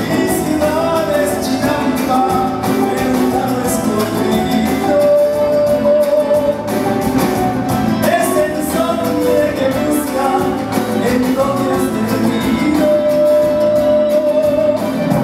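Live mariachi music: a male singer with violins and the rest of the band accompanying him, with a few long held notes.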